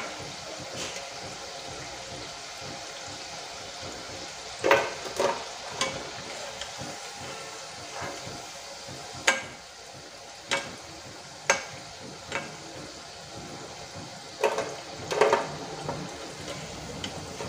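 Soya chunk kebabs deep-frying in hot oil with a steady sizzle. A metal slotted spoon clinks sharply against the pan about nine times as the pieces are turned and lifted out.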